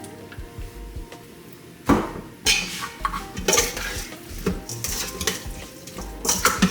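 A utensil knocking and scraping against a bowl as seasoning is stirred into raw oxtail. There is one sharp knock about two seconds in, then repeated clattering strokes.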